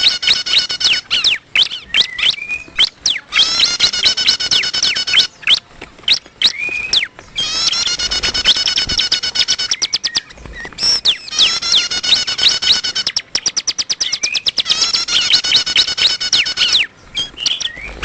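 Recorded bar-winged prinia (ciblek) calls played as a bird-trapping lure: bursts of fast, high repeated notes alternating with rapid ticking and short upward-sweeping whistles, the pattern repeating about every four seconds.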